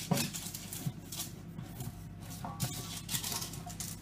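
Fingers wiping butter or margarine around the inside of a cake tin: light rubbing and scraping with small knocks of the tin.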